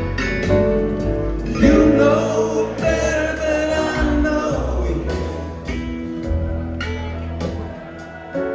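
Live rock band playing: a male voice singing over guitars, bass and drums, with a sliding pitched line about two seconds in.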